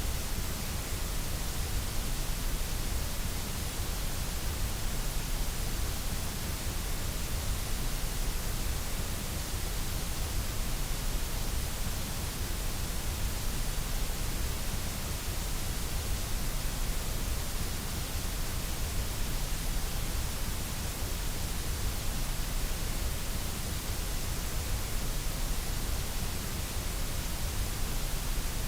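Steady, electronically generated white noise: an even hiss across all pitches that does not change.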